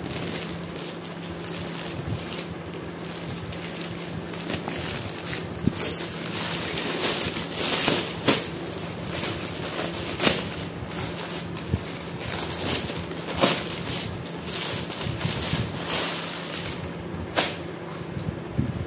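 Clear polythene packaging bag crinkling and rustling as it is cut open with scissors and a folded garment pulled out of it, with irregular sharp crackles.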